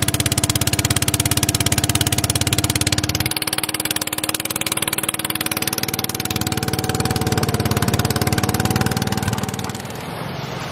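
Small motor of a motorized fiberglass canoe running steadily at speed across a lake, easing off near the end.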